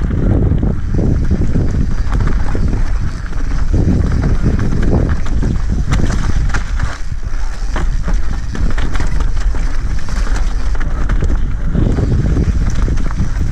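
Wind buffeting the microphone of a rider-mounted camera on a fast mountain-bike descent, with tyres rumbling over rough dirt and stones and the bike rattling and knocking on the bumps.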